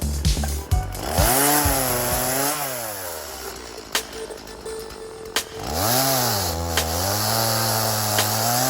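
Gas chainsaw revving up about a second in, easing back toward idle, then revving up again around six seconds and holding before cutting back at the end. Background music plays underneath.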